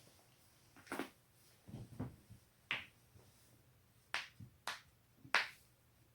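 Spinal joints of the neck and back being cracked: a run of sharp pops and cracks in quick clusters, several low dull cracks around two seconds in and the loudest crack about five seconds in.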